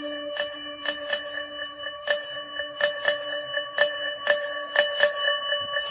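Alarm ringtone chimes: bright bell-like notes struck in a quick repeating pattern, each ringing on, over a held low tone that stops about two seconds in.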